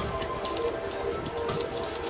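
Music with held notes and light ticking percussion.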